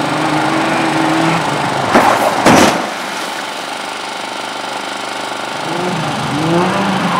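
Race car engine running steadily, with two short loud bursts of noise about two seconds in; the engine note then falls back and climbs again near the end as the car accelerates.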